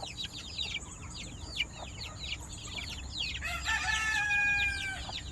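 Chickens: young birds peeping steadily in quick, short, falling chirps, and a rooster crowing once about three and a half seconds in, one held call of about a second and a half.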